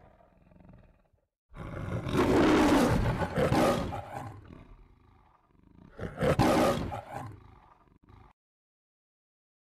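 Lion roaring: the MGM logo roar. One long roar a second or so in, then a second shorter roar past the middle that cuts off suddenly, leaving silence near the end.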